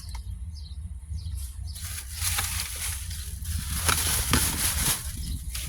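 Rustling and handling noise close to the microphone, in irregular bursts that are loudest in the middle, over a steady low hum.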